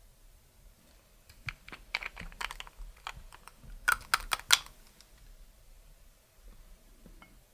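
Hands working clear slime with makeup mixed in: a quick, irregular run of sharp clicks and crackles for about three seconds, loudest near the middle, then quiet handling.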